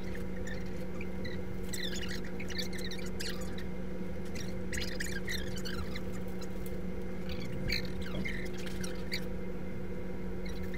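Steady low hum of ventilation, with scattered clusters of short, high-pitched squeaks coming and going.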